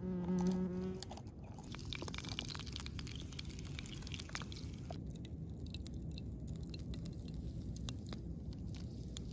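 A bee buzzes close past for about a second, a loud steady hum. Then hot molten butter crackles and sizzles with many small pops, thinning out about halfway through.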